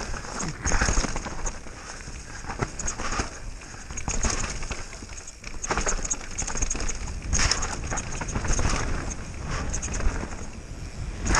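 Downhill mountain bike descending a dirt trail: tyres running over loose dirt, leaves and stones, with the bike rattling and knocking over the bumps.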